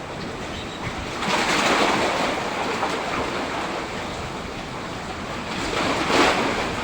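Big sea waves surging and breaking in strong wind, with wind buffeting the microphone. Two louder waves wash in, about a second in and near the end.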